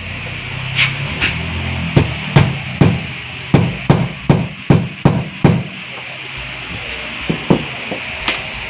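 Hammer driving a nail into the wall to make a hole for a hanging screw: about nine sharp strikes at a steady two or three a second, then a few lighter knocks near the end.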